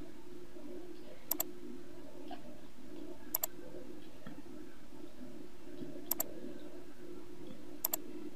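Computer mouse clicking four times, each a quick pair of clicks, over a steady low hum.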